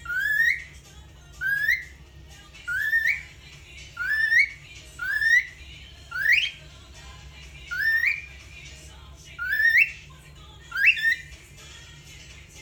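Cockatiel whistling the same short rising phrase over and over, nine times, about one every second and a half.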